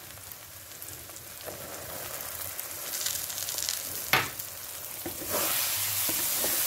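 Fenugreek-and-spice masala sizzling in oil in a kadai as boiled green peas are tipped in and turned with a metal spatula. There is a sharp knock about four seconds in, and the sizzle grows louder from about five seconds as the peas are stirred through.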